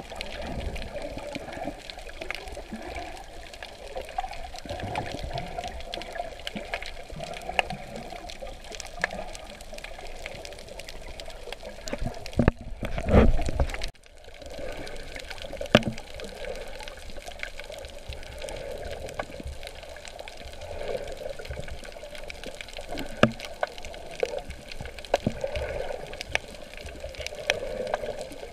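Water sloshing and gurgling around a snorkeler's camera, heard muffled as if at or under the surface, with small clicks throughout. About halfway through, a louder rush of water swells and cuts off suddenly.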